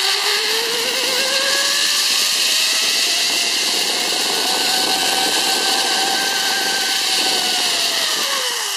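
Zip-line trolley (a Petzl tandem pulley) rolling down a galvanized steel cable with a loud rushing hiss. Its whine climbs steadily in pitch as it picks up speed, then drops near the end as the rider slows on the line.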